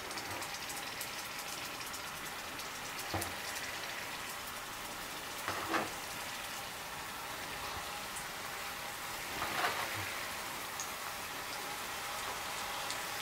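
Hot vegetable oil sizzling steadily in a frying pan as floured pork cutlets are laid in one by one; the sizzle briefly gets louder about three, six and ten seconds in.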